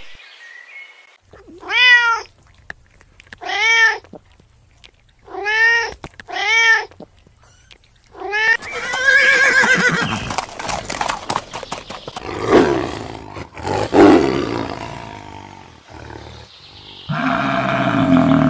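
Several animals calling one after another. First come five short calls that rise and fall in pitch, then a horse whinnying with a wavering pitch and snorting, then a hippopotamus grunting low near the end.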